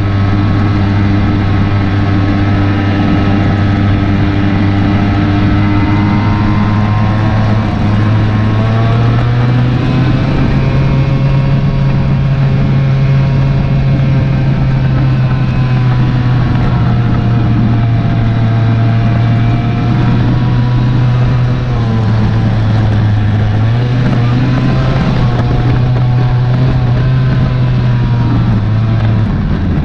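Suzuki LT80 quad's small two-stroke single-cylinder engine running under load, heard on board. Its note steps up about eight seconds in, dips briefly a little past twenty seconds, rises again and drops near the end.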